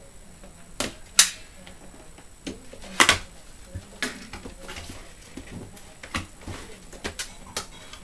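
Cardboard graphics-card box being handled and opened: a series of sharp clicks, taps and knocks of cardboard, the loudest about a second in and about three seconds in.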